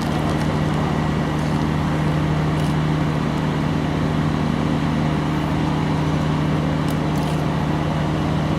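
Gas turbine generator of an emergency power supply vehicle running steadily: a constant low hum with a few steady tones and no change in speed.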